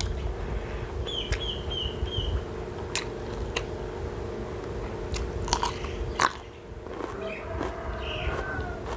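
A person chewing and biting crunchy food close to the microphone, with sharp crunches scattered through, the loudest about six seconds in. A short run of high chirps sounds about a second in.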